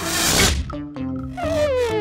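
Light cartoon background music with a short hissing whoosh at the start, then a wavering, whistle-like sound sliding down in pitch over the second half, a cartoon sound effect.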